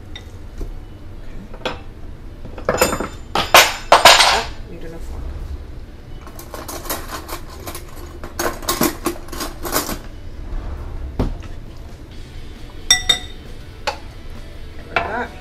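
A knife scraping and knocking corned beef out of an opened tin can into a glass mixing bowl: metal scrapes and clinks against the can and bowl, loudest about three to four seconds in, with a short ringing clink near the end.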